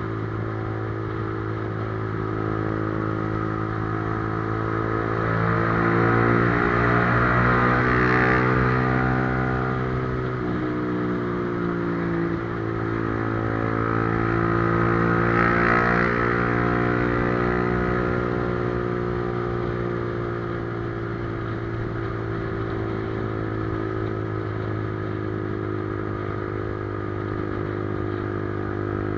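Motorcycle engine running steadily, twice swelling louder as its pitch rises and then falls back.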